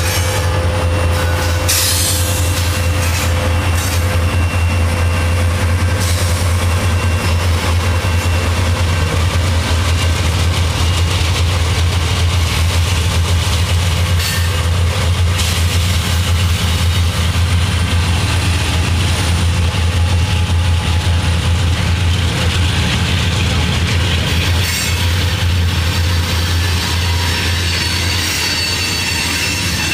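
Diesel-electric locomotives of a loaded coal train running, led by an EMD SD70MAC with GE units behind: a steady, loud low drone with a noisy wash above it.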